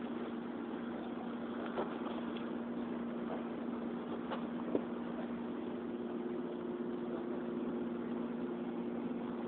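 A steady, even mechanical hum like an engine running, over a faint wash of noise, with a few light clicks.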